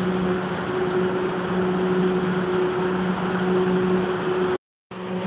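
Steady machine hum: a constant low drone with an airy hiss over it, which cuts out completely for a split second near the end.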